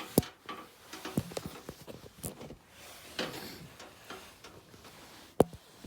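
Handling noises: scattered sharp clicks and knocks with soft rustling between them, the loudest click about five and a half seconds in.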